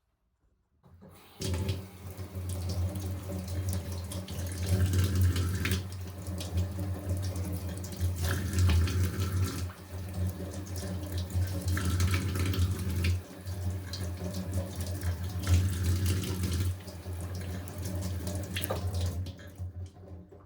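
Water running from a tap into a sink, turned on about a second in and off near the end, with a steady low hum beneath the rush of water.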